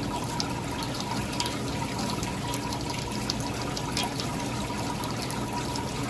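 Hot water running steadily from a faucet into a stainless steel prep sink, splashing onto a perforated basket insert. The tap is left running to check the temperature the water heater delivers.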